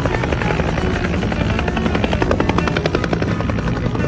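Helicopter running on the airfield, its rotor giving a rapid, even pulsing over steady engine noise.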